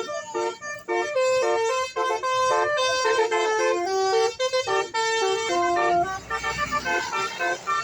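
Bus "telolet" musical horn (Basuri type) playing a tune: several horn tones sounding together and stepping quickly from note to note. A rushing noise lies under the notes for about a second near the end.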